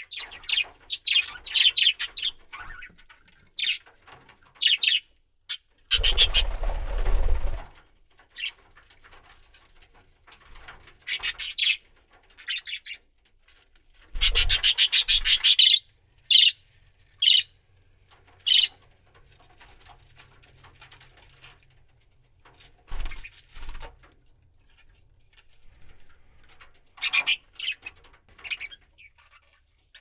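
Pet budgerigars chirping in short, scattered calls, with two longer bursts of wing flapping, one about six seconds in and one about fourteen seconds in.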